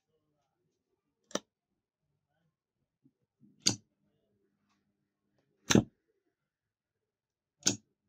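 Contactor clicking in and out as a float level switch is tilted, switching a bulb on and off. Four sharp clicks about two seconds apart.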